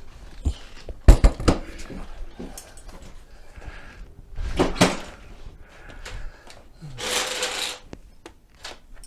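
Clunks, knocks and clatter of hand tools and parts being handled during work on a mobility scooter, with a loud clunk about a second in, another pair near the middle, and a short scraping rush about seven seconds in.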